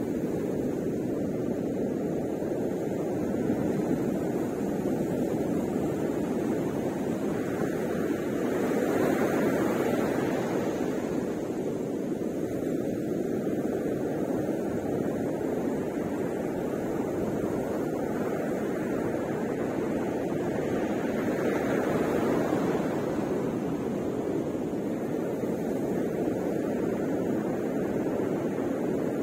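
Ocean surf breaking and washing onto the beach, a steady low rumble that swells louder about a third of the way in and again past two-thirds.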